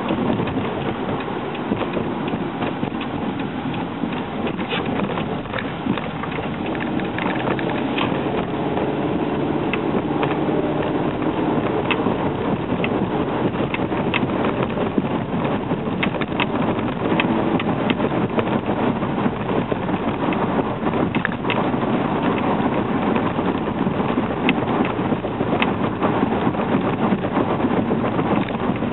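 Engine and road noise inside the cabin of a 2010 Hyundai Accent at driving speed, a steady rush and hum with many small irregular ticks and crackles scattered through it.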